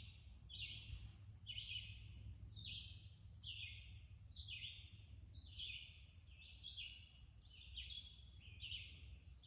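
Faint birds chirping: short high notes repeating about once a second, sometimes overlapping as if from more than one bird, over a low steady rumble.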